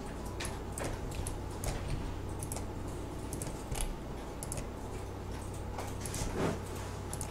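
Scattered computer mouse clicks at irregular intervals over a steady low electrical hum.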